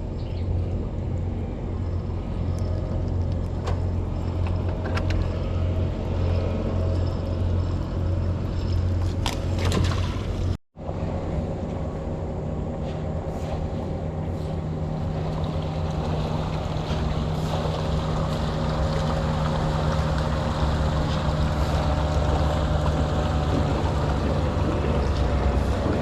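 Boat engine running steadily with a low hum. After a brief break about ten seconds in, it carries on with a rushing noise that slowly builds.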